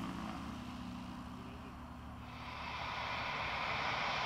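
Robin DR401/155CDI's four-cylinder turbodiesel engine and propeller running at taxi power: a low steady drone with hum tones that fades over the first half. About halfway in, a hiss with a steady high whine rises and takes over.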